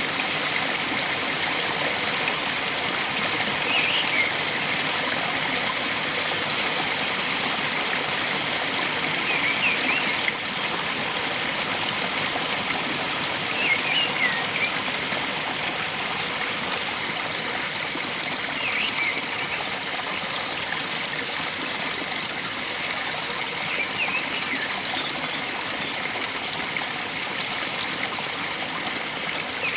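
Steady rush of flowing stream water, with a bird calling short chirping phrases about every five seconds over it.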